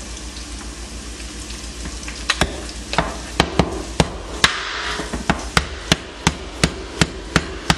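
A large kitchen knife chopping through a raw lobster's shell onto a cutting board. Sharp knocks start about two seconds in and repeat roughly three times a second.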